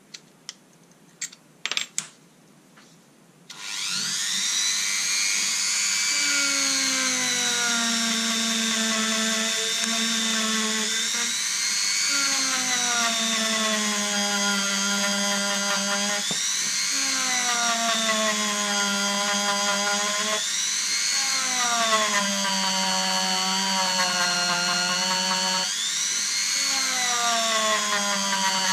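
After a few light clicks, a Dremel rotary tool starts and runs with a steady high whine as its small bit works the end of an old metal tube. Its pitch slowly sags and then jumps back up every four or five seconds.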